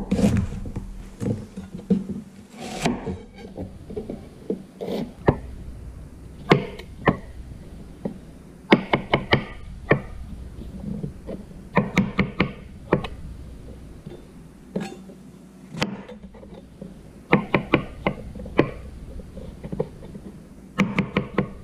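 Chef's knife slicing through onions and button mushrooms and knocking on a plastic cutting board: quick runs of sharp knocks, several a second, in groups a few seconds apart.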